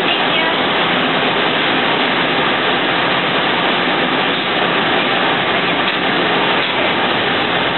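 Steady, loud cabin noise inside a city bus on the move: the bus's engine and road noise as heard from the passenger seats.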